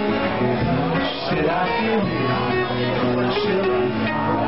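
Live band playing, with an acoustic guitar strummed among other instruments.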